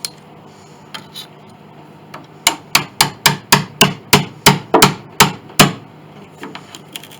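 Hammer driving a wedge into a glued joint of an antique grand piano to crack the old glue: about a dozen sharp blows, three or four a second, starting a couple of seconds in, after a few light taps.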